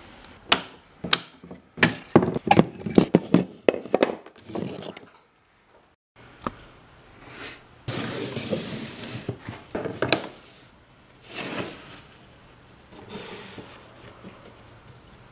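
A quick run of sharp knocks and clatters over the first few seconds. After a short gap, loose pine pieces are slid and shuffled across a bench top, with scraping in several stretches and a few light taps.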